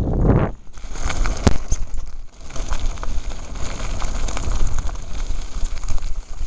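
Mountain bike rolling down a gravel track: tyres crunching over loose stones and wind rumbling on the microphone, with a few sharp clicks and rattles.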